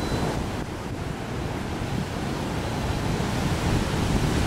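Heavy hurricane-driven surf breaking and rushing ashore, a dense steady roar that grows louder toward the end as a big wave crashes into whitewater. Wind buffets the microphone underneath.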